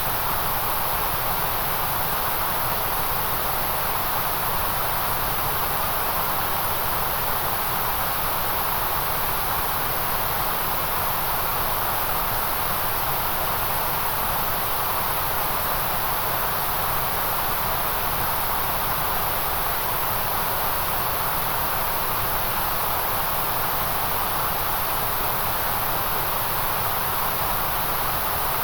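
Generated white noise: an even, unchanging hiss, fullest in the middle and the top treble.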